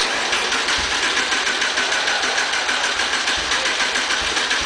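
Starter motor cranking the smart Brabus Roadster's hand-built 1.4 V6 bi-turbo engine (two 698cc turbocharged three-cylinders joined): a loud, steady, rapid whirring with a few weak low thumps, cutting off near the end. It is a start attempt on an engine that had not been run for some time.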